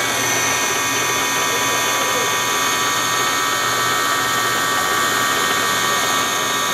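Sharnoa CNC vertical milling machine running, a steady mechanical whine made of several fixed high tones.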